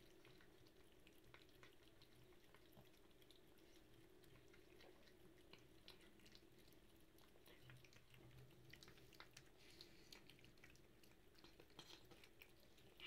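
Faint sounds of a cat eating: soft chewing and smacking clicks, more frequent in the second half, over a low steady room hum.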